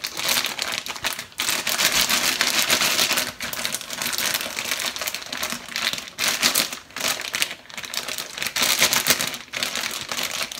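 A zipper plastic storage bag crinkling as it is squeezed and kneaded by hand to mix cucumber chunks with the sauce inside, in bouts broken by brief pauses.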